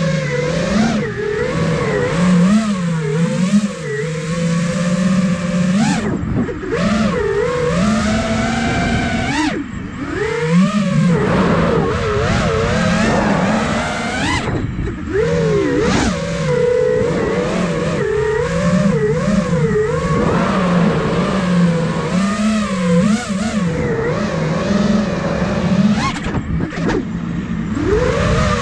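Brushless motors and propellers of an iFlight Nazgul Evoque F5 5-inch FPV quadcopter whining, the pitch constantly swooping up and down as the throttle is worked through freestyle moves.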